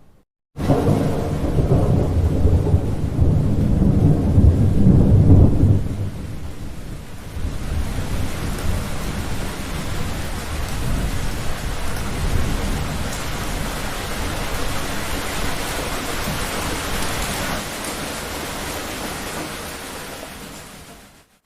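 Thunder rumbling loudly and low for about five seconds, followed by steady rain that fades out near the end.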